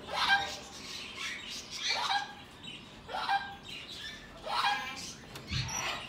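Green-cheeked conure giving short, shrill calls, about six in a row roughly a second apart.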